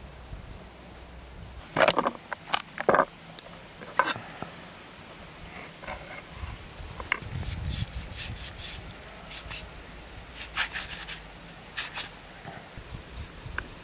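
Knife cutting apart a whole raw chicken on a wooden cutting board: sharp clicks and knocks as the blade works through the carcass and meets the board, loudest in a cluster about two to three seconds in, with scraping and rubbing between.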